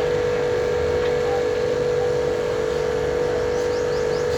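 A steady machine hum with one constant mid-pitched tone that never changes in pitch or level, over a low rumble.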